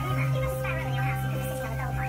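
Background music with held notes under a wavering melody.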